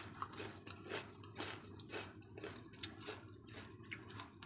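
Crunchy homemade potato chips being chewed: a steady run of crisp crunches, about two to three a second.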